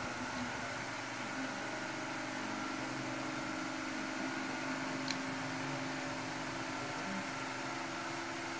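Steady hum and hiss of a running machine, with one faint sharp click about five seconds in.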